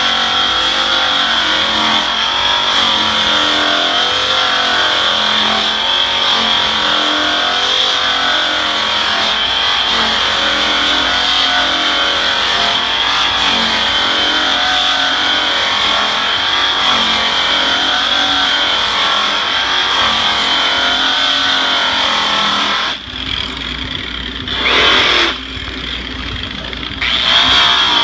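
Makita high-speed rotary polisher with an orange buff and brown rouge, running against aluminum diamond plate. Its motor whine wavers up and down as the buff is pressed and moved over the plate. Near the end it drops out for a few seconds, with one short rising spin-up in between, then runs again.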